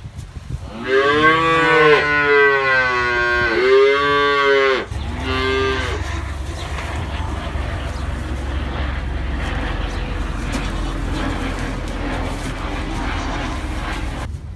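Holstein calf mooing: a long moo that wavers and dips in pitch about a second in, then a short moo around five seconds in, followed by a steady low noise.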